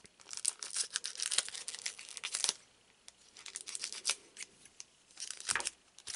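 A foil trading-card booster pack wrapper being cut and torn open with scissors, crinkling and crackling densely for about two and a half seconds. Then come a few shorter crinkles as the opened wrapper is handled.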